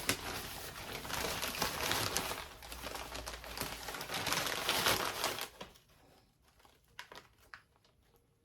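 Packaging wrap crinkling and rustling as a shipped orchid plant is unwrapped by hand, dense for about five seconds and then dying down to a few faint rustles and clicks.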